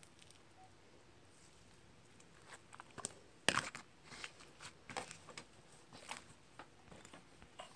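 Slime being handled and pressed into a plastic tub: faint scattered crackles and small clicks that begin a couple of seconds in, with a sharper snap about three and a half seconds in.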